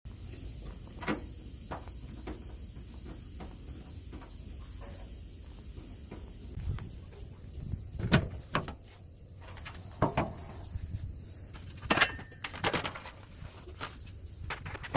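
Air conditioner outdoor unit running with a steady low hum while its fan rattles with irregular sharp knocks: the rattling noise comes from a loose screw holding the fan blade.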